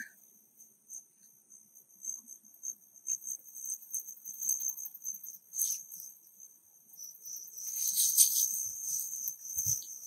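Insects trilling steadily at a high pitch, swelling louder for about a second around eight seconds in.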